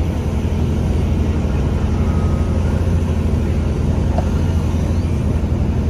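Compact excavator's diesel engine running steadily at a constant pitch under hydraulic load while its tiltrotator bucket dumps sand and is tilted.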